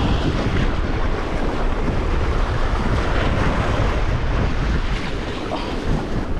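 Steady wind buffeting the microphone over the wash of the sea.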